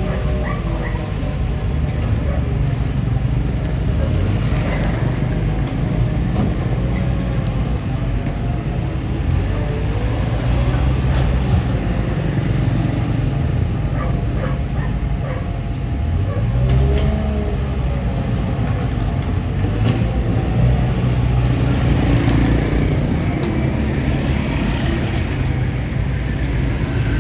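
Bulldozer's diesel engine running with a steady low rumble, its pitch rising and falling as it works, with a few short clanks around the middle.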